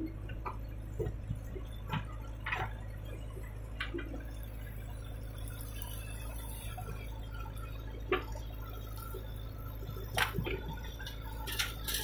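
Diesel engine of a JCB 3DX backhoe loader running with a low, steady drone while the backhoe digs and dumps earth, with scattered sharp knocks and clatters.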